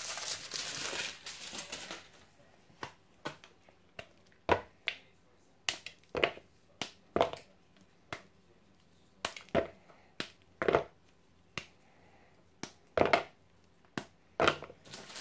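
A bar of white chocolate snapped apart by hand, about fifteen sharp, irregular cracks as squares break off and drop into a plastic bowl. A foil wrapper crinkles during the first couple of seconds.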